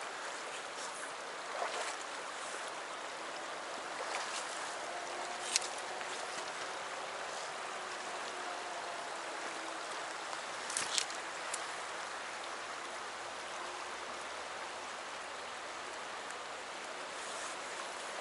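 Shallow mountain stream running steadily over rocks and riffles, with a few brief sharp clicks about five and a half and eleven seconds in.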